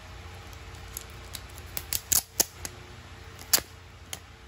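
Clear plastic card sleeve and the stack of cards inside it being handled, giving a string of sharp clicks and crackles. Most fall in the middle, the loudest a little past two seconds and again about three and a half seconds in.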